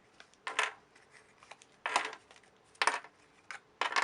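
Cardboard-tube infinity cube being folded and flipped in the hands: four short papery scuffs and knocks, about one a second.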